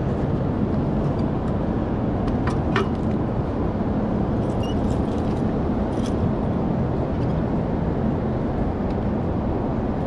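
Steady low rumble of road traffic, with a few faint metal clicks and rattles from a folding bike lock being fitted around the bike frame, two close together about two and a half seconds in and one near six seconds.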